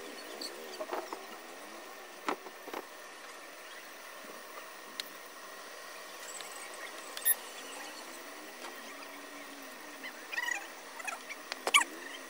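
Scattered light clicks, taps and small rattles from hands handling a bare LCD panel, its wires and a small tool, over a steady hiss. The sharpest clicks come about seven seconds in and again near the end.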